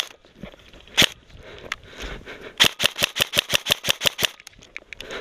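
Airsoft rifle shots: a single shot about a second in, another shortly after, then a rapid string of about a dozen shots at roughly seven a second.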